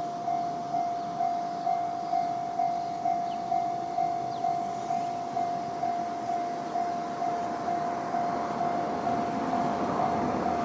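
Japanese level-crossing warning bell, an electronic bell of the JR East 'Tohoku' tone type, ringing steadily at about two strikes a second. Over the last few seconds the running noise of an approaching E531-series electric train rises under the bell.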